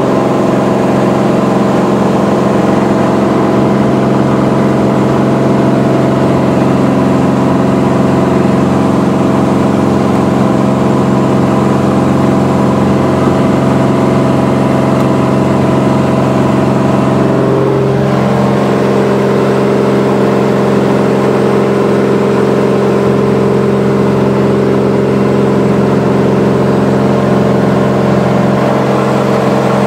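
Ryan Navion's six-cylinder piston engine and propeller droning steadily at climb power, heard from inside the cabin. About eighteen seconds in, the pitch dips and shifts briefly before running steady again.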